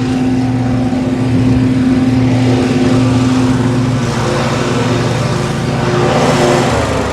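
Lawn mower engine running steadily under load, its note shifting about four seconds in and dropping slightly near the end.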